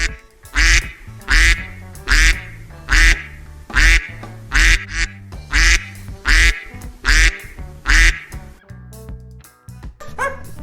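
An animal's short, harsh call repeated about ten times in a steady rhythm, a little under a second apart, over background music; the calls stop about three-quarters of the way through.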